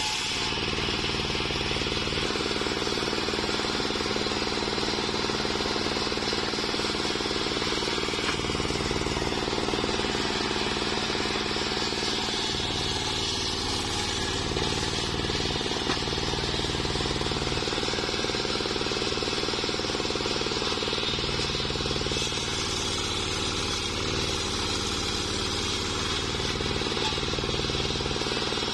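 Small engine running steadily to drive a homemade circular saw bench, its large blade cutting lengthwise through a waru (sea hibiscus) log.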